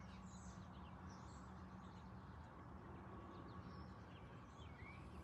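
Near silence: a few faint, scattered bird chirps over a low steady background hum.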